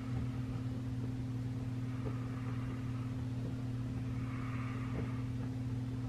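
Room air conditioner running with a steady low hum, with a few faint ticks.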